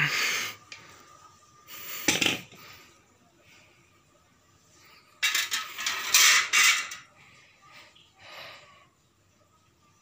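Painted sheet-metal ceiling-fan blades being handled on a tile floor, clinking and scraping in several short bursts, with the longest clatter about halfway through.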